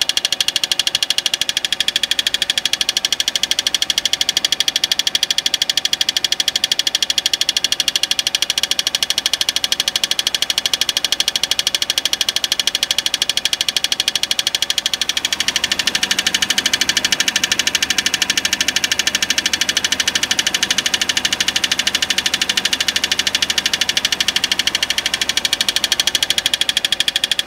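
2005 Peugeot 206 CC engine running with a fast, even ticking. The tick is still there with the torque converter bolts freshly tightened, so loose converter bolts are not its cause. About halfway through, the sound shifts and gains a low hum.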